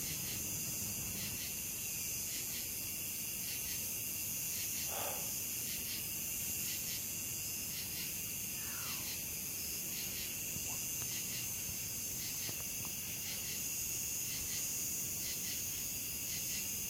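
Night chorus of crickets and other insects: a steady high trilling with an even, repeating pulse.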